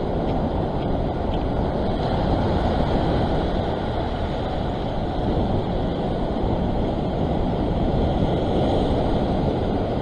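Ocean surf breaking and washing over a rock ledge, a steady rushing noise, with wind buffeting the microphone.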